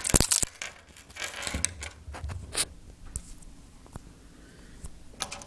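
Plastic clicks and rattles of a homemade pen gun being handled and taken apart by hand: a quick cluster of sharp clicks at the start, then a few single clicks and light rustling.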